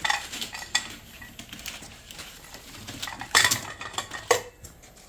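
Hard objects knocking and clattering in a run of sharp clinks, with two louder clatters about three and a half and four and a half seconds in.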